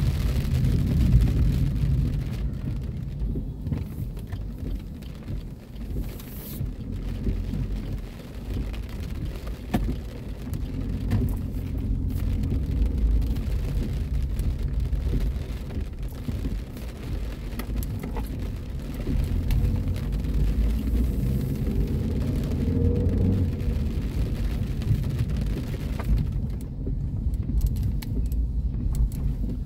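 Heard from inside a car driving through heavy rain: a steady low rumble of engine and tyres on the wet road, with the hiss of rain on the car. The rain hiss drops away for a few seconds near the end.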